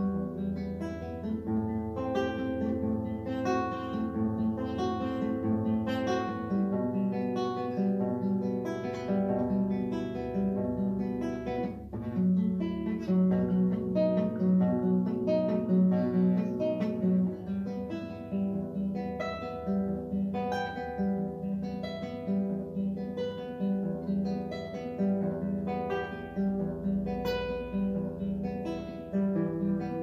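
Solo classical guitar played fingerstyle: a fast étude of quick, continuous plucked notes over a recurring bass line, growing louder about twelve seconds in.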